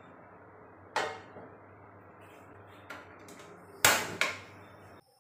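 A black non-stick frying pan knocking against a gas stove's metal burner grate as it is set down: a sharp knock about a second in, a lighter one near three seconds, and the loudest pair of clanks around four seconds.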